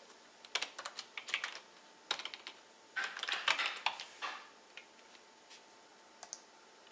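Computer keyboard typing in quick bursts of keystrokes for about four seconds, then a lone click a little after six seconds in.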